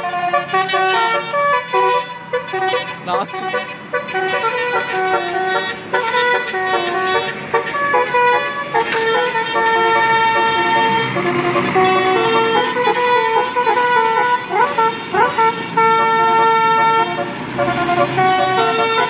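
Many vehicle horns honking over one another in road traffic, at several different pitches, some short toots and some held for a second or two.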